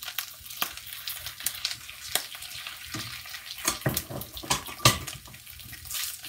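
Pieces of starch-coated chicken sizzling in hot oil in a frying pan as they are stirred, with sharp clicks and scrapes of the utensil against the pan, the loudest about five seconds in.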